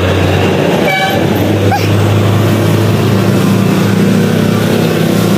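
Street traffic: a steady engine drone from trucks and other vehicles on the road, with a second, higher engine note coming in about two seconds in.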